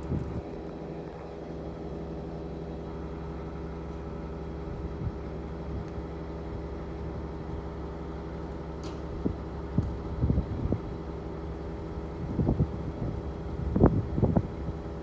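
Engine running steadily at one even pitch. Several short, louder rumbles come over it in the second half.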